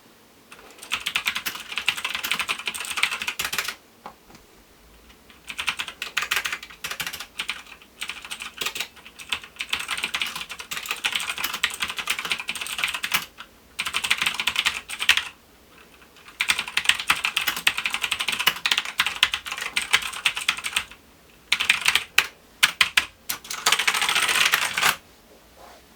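Typing on a MAXTILL TRON G750 mechanical keyboard: fast runs of key clicks in several stretches, broken by short pauses.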